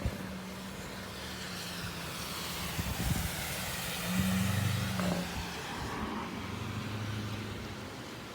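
A vehicle passing on the expressway bridge overhead, its tyre and road noise swelling to a peak about halfway through and then fading, over a steady low hum.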